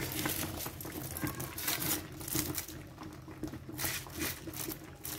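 Water poured into a metal pot over foil-wrapped parcels, pattering and splashing on the aluminium foil with irregular crinkling and clicking.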